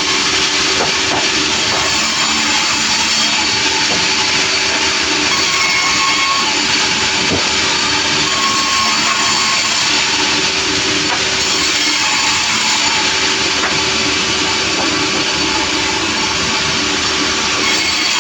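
Sawmill machinery running steadily at full noise: a steady engine drone under a loud, even hiss of the saw working through timber.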